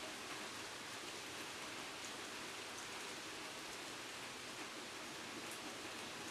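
Steady rain falling on a garden, an even hiss with a few faint drops ticking now and then.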